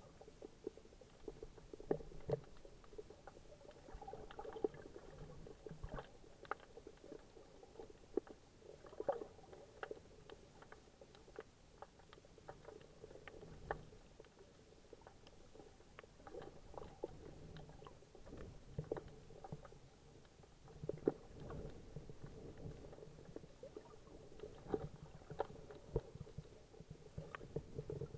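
Muffled underwater sound picked up through an action camera's sealed waterproof housing: a low rumble of moving water that swells and fades, scattered with many irregular sharp clicks and crackles.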